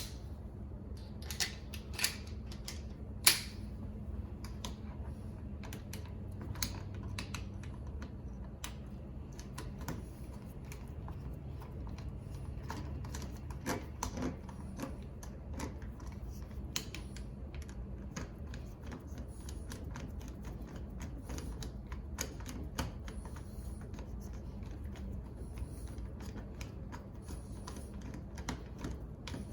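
Many small, irregular metal clicks and taps from an exterior door knob's parts and screws being fitted and tightened, with a few sharper clicks in the first few seconds.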